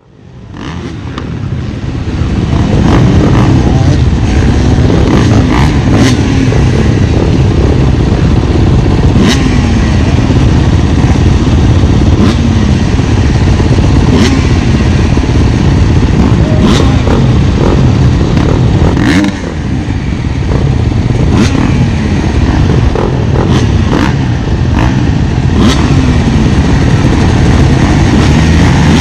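Off-road dirt bike engine at race pace, its pitch climbing and then dropping again and again every second or two as the rider accelerates and shifts, over a heavy low rumble with scattered sharp knocks.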